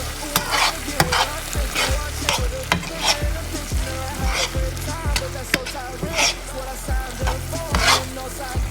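Chicken sizzling in a frying pan while being stirred, with irregular scraping strokes against the pan. Background music with a beat plays under it.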